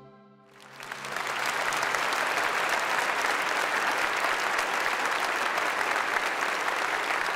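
The final note of a boys' choir fades away, then a large audience starts applauding about half a second in, swelling within a second into steady, dense clapping.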